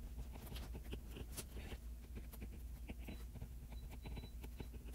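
Handwriting on an iPad touchscreen: a run of soft, irregular ticks and scrapes as the letters are drawn, over a low steady hum.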